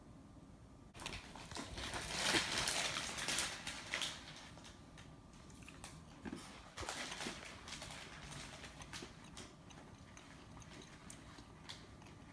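Plastic snack packaging crinkling and crackling as it is handled and opened, loudest for about three seconds starting a second in, with a shorter burst a few seconds later and scattered small crackles and clicks after.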